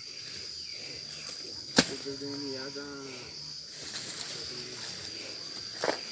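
Insects droning steadily at one high pitch outdoors, with a sharp knock about two seconds in, a distant voice just after it, and a second knock near the end.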